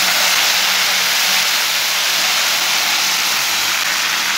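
Hot cooking oil sizzling hard where water has been poured in over sugar in an aluminium karahi: the water boiling off in the oil as a loud, steady hiss.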